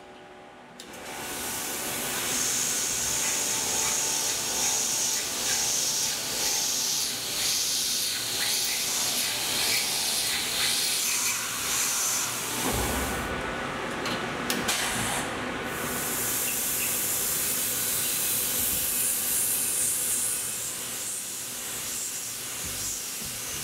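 Tormach 1100M CNC mill cutting aluminum with an end mill under mist coolant: a steady hiss of the air-driven coolant spray over the spindle and cutting sound, starting about a second in.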